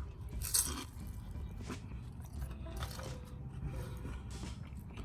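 A person biting into a crispy deep-fried stuffed chicken wing and chewing it, with one loud crunch about half a second in and softer crunches after.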